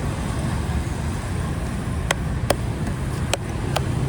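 Steady low rumble of road traffic. From about halfway, a run of sharp, regular taps comes in, roughly two or three a second.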